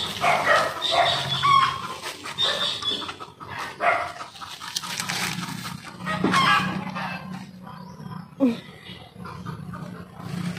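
Hungry puppies yelping and whining again and again, with one louder yelp falling in pitch about eight and a half seconds in.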